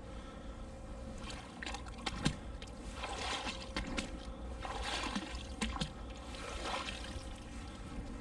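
Canal water trickling and dripping off a fishing magnet and its rope as they are pulled from the water, with scattered small clicks and knocks, one sharper knock a couple of seconds in.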